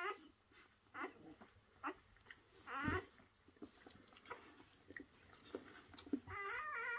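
Newborn puppies squeaking and whining while they nurse: several short wavering squeaks with small suckling clicks between them, then a longer wavering cry starting near the end.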